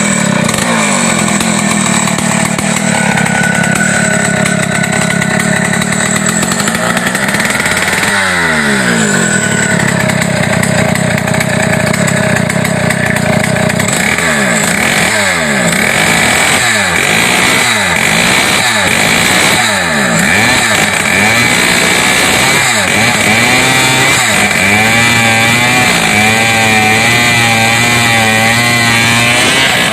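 Two-stroke chainsaw engine running with no guide bar or chain fitted, revved hard for an engine-strength test. It holds high revs, drops away about eight seconds in, then has its throttle blipped up and down about once a second before settling into an uneven, wavering idle near the end.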